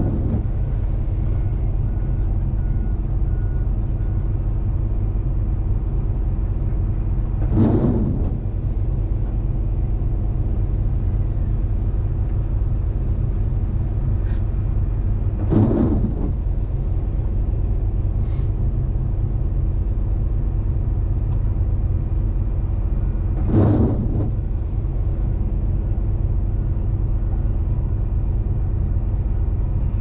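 In-cab sound of a Cat 390F excavator's C18 diesel engine running steadily, with a brief swell in the machine's sound three times, about eight seconds apart.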